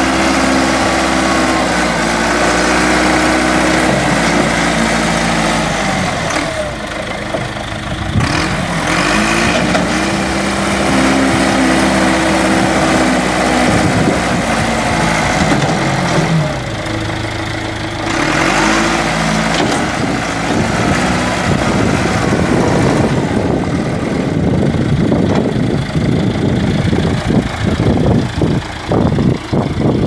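John Deere 310D backhoe's four-cylinder turbo diesel running as the machine drives, its pitch dipping and rising again twice. Irregular rough thumps and crackle come in over it for the last several seconds.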